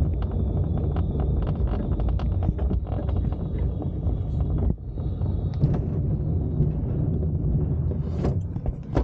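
Glider's main wheel rolling on the tarmac runway during the landing roll-out, a low rumble with rapid rattles of the airframe and canopy. A thin steady high tone stops about halfway through, and a single knock comes near the end.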